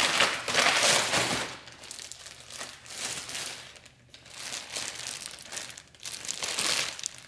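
Crumpled kraft packing paper rustling and crinkling as it is pulled out of a cardboard box, with the plastic bag around the intake tube crinkling as it is handled. The rustling is loudest in the first second and a half, then comes in quieter scattered bursts.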